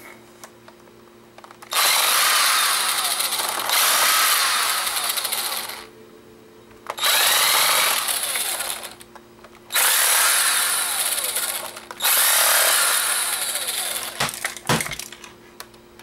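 Cordless power driver spinning out the tiny screws of a camcorder's casing in five runs of about two seconds each, with short pauses between, its pitch rising and falling as the screws turn out.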